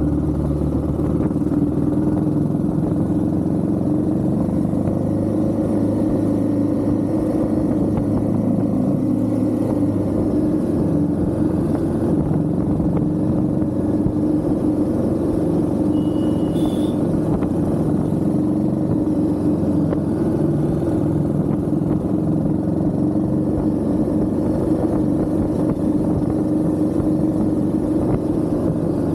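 Royal Enfield Himalayan 450's single-cylinder engine running steadily under way, holding an even pitch with no big revs or gear changes.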